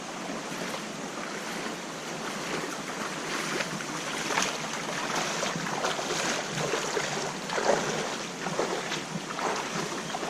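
Splashing footsteps of a person wading through a shallow creek in rubber boots. The splashes come in an uneven run starting about three seconds in, over a steady background hiss.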